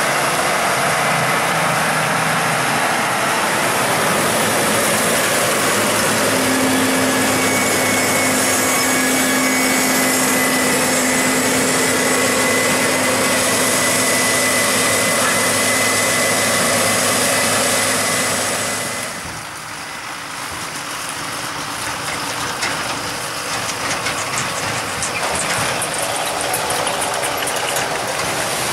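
Heavy farm machinery engine running steadily under load, with a steady whine over the engine noise. About two-thirds of the way through it suddenly drops away to a quieter rushing noise that slowly builds again, with light rattling ticks near the end.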